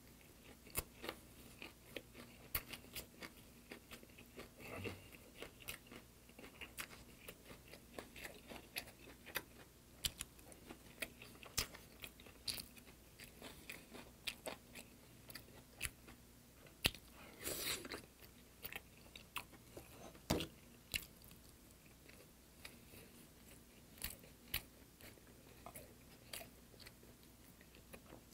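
Close-miked mouth sounds of a man chewing a lettuce wrap of braised sardine: soft, irregular wet smacks and clicks, with one louder noise about two-thirds through.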